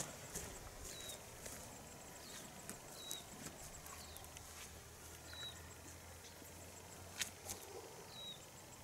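Quiet rural ambience with a short, high chirp repeating every second or two, like a small bird calling, and a few faint clicks, the sharpest about seven seconds in.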